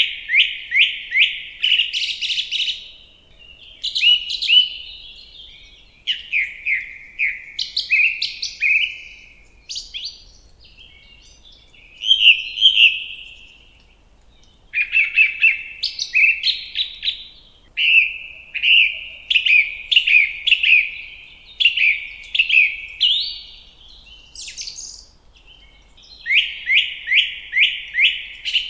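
Birdsong: phrases of quick, evenly spaced chirps, each phrase lasting a second or two and repeated after short pauses.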